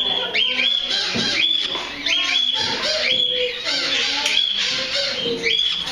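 A room full of caged parrots and other birds calling and squawking at once, with repeated calls that sweep up to a held high note over a steady chatter.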